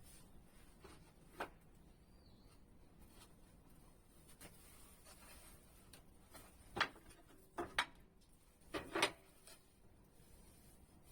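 A few short, light knocks and clatters of wood being handled at a workbench: one about a second and a half in, then a cluster of four or five near the end, over quiet room tone.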